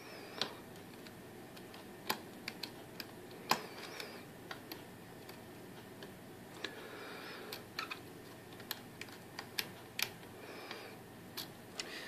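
Hook pick working the pin stacks of a BKS pin-tumbler rim cylinder under tension: scattered light metallic clicks and faint scraping as the pick probes and lifts pins, with no pin setting yet.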